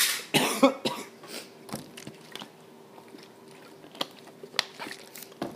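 A hoarse man coughs twice at the start, then small clicks and swallowing sounds follow as he drinks water for his strained voice.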